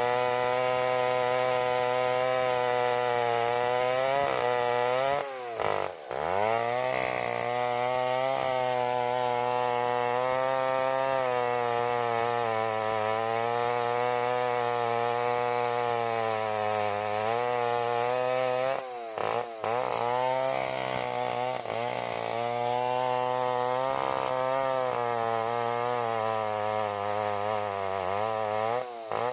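Large two-stroke chainsaw running at full throttle, cutting through a mahogany log. The engine dips in speed under load three times: about five seconds in, about two-thirds through, and near the end. Each time it picks back up.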